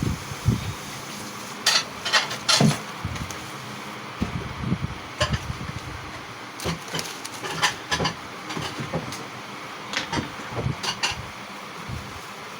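Kitchen utensils and dishes clinking and knocking in an irregular series of sharp taps, the loudest cluster a couple of seconds in, over a steady background hiss.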